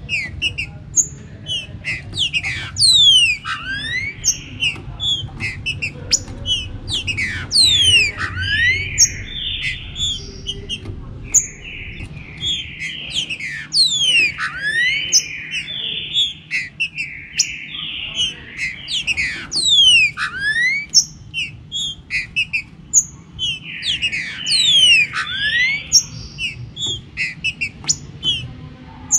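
Green-winged saltators (trinca-ferro) and other birds singing over one another. Short whistled notes run throughout, and clusters of sharp sweeping notes come about every five to six seconds.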